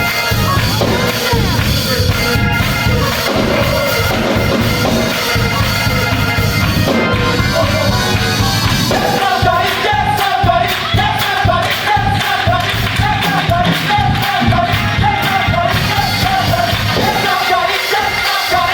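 Gospel choir singing over a full band with a steady beat; the voices come in strongly about nine seconds in.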